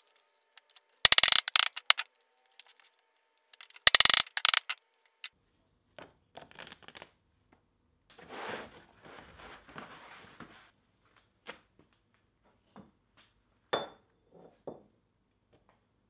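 Leather handled on a wooden workbench. There are two loud, crackling tearing bursts, each about a second long, as cut leather pieces are pulled free, then softer rustling and scraping, and a few light knocks with a short metallic clink near the end.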